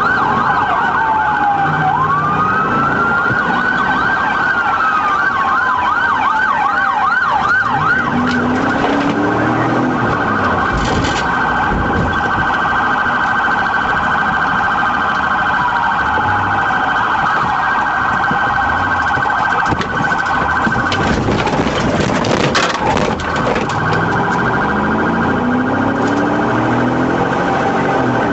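Police car siren switching between a fast yelp and a slower rising-and-falling wail, heard during a pursuit. The engine revs up a couple of times under hard acceleration, and there is a burst of broad clattering noise about three-quarters of the way through.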